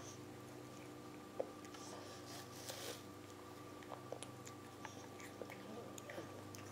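A toddler chewing and biting an apple: faint wet mouth clicks and smacks, with one sharper click about a second and a half in and a brief crunchy rustle a little later.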